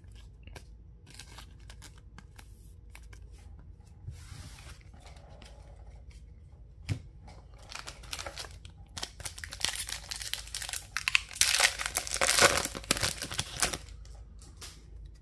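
Foil wrapper of an Upper Deck hockey card pack being torn open and crinkled, loudest from about nine seconds in until near the end. Before that, only faint taps and rustles of cards and packs being handled.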